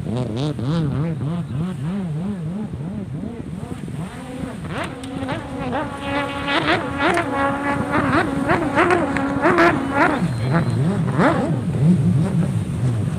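Jet ski engines racing, their pitch rising and falling again and again as they rev. Midway a higher, steadier engine note joins for several seconds, then drops away in falling glides.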